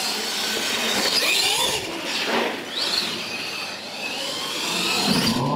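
Radio-controlled monster truck driving on concrete, its electric motor whining and rising and falling in pitch as the throttle is worked.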